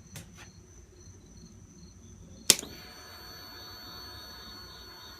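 A sharp electrical click about halfway through, then a steady whine with several pitches from the 2003 Kawasaki ZX-6R's electric fuel pump, switched on with the ignition and priming; the engine does not crank.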